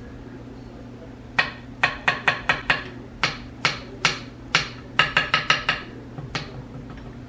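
A metal utensil clinking against a cooking pot, a dozen or more sharp ringing knocks in uneven quick runs. A steady low hum runs underneath.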